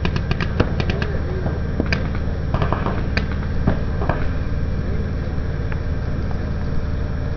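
Paintball markers firing strings of quick sharp pops, densest in the first four seconds and then thinning out, over a steady low rumble.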